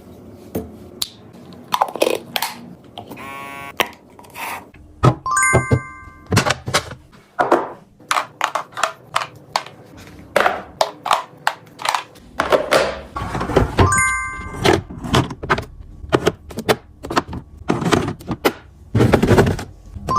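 Items and containers handled and set down in quick succession while restocking: many short knocks and clunks, with three brief ringing clinks.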